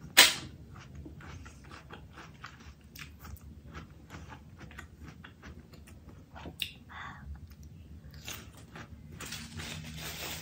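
A person chewing and biting food: a run of small, crisp crunching clicks, with one sharp, loud knock just after the start.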